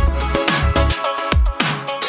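Electronic dance music with heavy bass kicks and a fast hi-hat beat.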